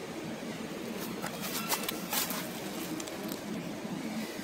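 Steady low outdoor background rumble, with a few short sharp crackles about one and a half to two seconds in.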